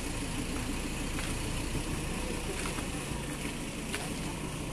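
A truck engine idling steadily, with a few faint clicks.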